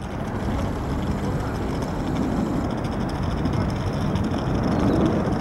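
Boeing 737-800 jet airliner climbing out after takeoff, its CFM56-7B turbofan engines at takeoff thrust giving a steady low rumble that grows slightly louder toward the end.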